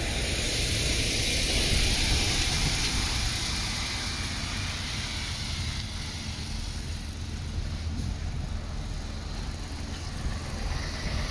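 A lorry's engine running as it drives past, loudest about two seconds in and then slowly fading.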